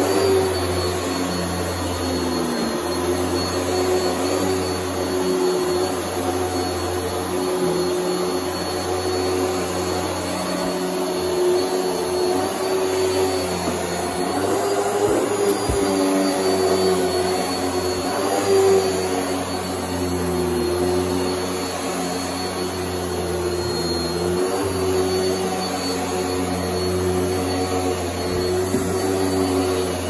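Airway Sanitizor Mark V canister vacuum running with its power nozzle being worked over carpet: a steady motor drone with a thin high whine, its pitch dipping and recovering slightly now and then.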